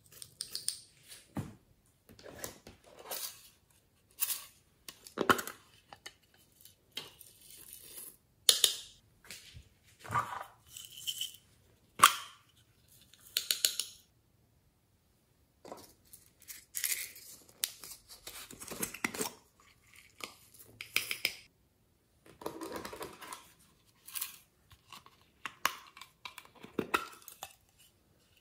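Glitter, sequins and confetti sprinkled and poured from small plastic containers onto slime in a glass dish: a string of short crackling, rustling patters and light clicks, with a pause of about two seconds near the middle.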